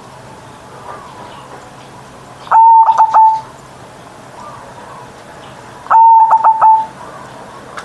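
Zebra dove (perkutut) cooing twice, about three and a half seconds apart. Each phrase is one long clear note followed by three quick short notes.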